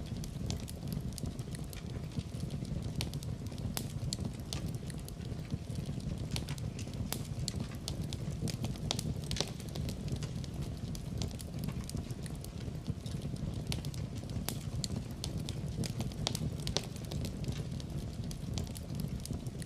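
Wood fire in a fireplace crackling, with irregular sharp pops and snaps over a steady low rumble of the burning fire.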